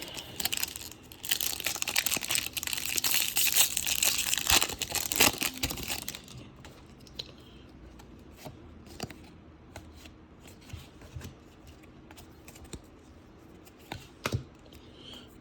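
A Topps baseball card pack wrapper being torn open and crinkled for about five seconds, then a quieter stretch of scattered soft clicks as the cards are handled.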